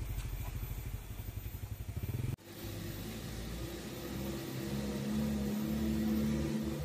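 Loaded dump truck's diesel engine running with a low, even pulse as it pulls away. After a sudden cut about two and a half seconds in, another truck's engine is heard approaching and growing louder.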